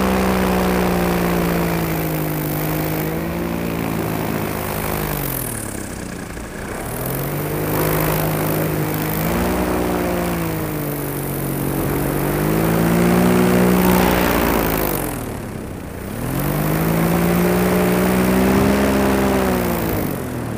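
Paramotor engine and propeller running in flight. The throttle is pulled back and opened up again twice, the pitch dropping low about six and sixteen seconds in and climbing back each time.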